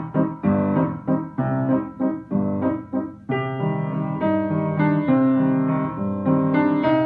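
Piano music: separate notes struck about twice a second, then longer held notes from about three seconds in.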